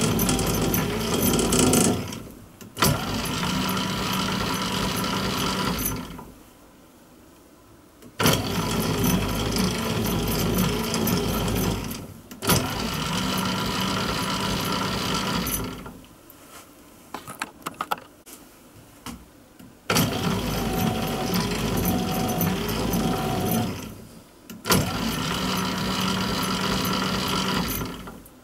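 Old lathe running under power while a tool cuts a helical gear tooth in a brass blank: the motor, gear train and carriage run in three pairs of runs a few seconds long, each pair split by a short stop. Quiet gaps fall between the pairs, and a few small clicks in the middle gap come from hand adjustment.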